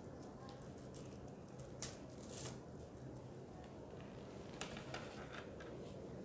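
Strung plastic beads being lifted and shifted by hand, clicking and rattling faintly a few times, the loudest about two seconds in.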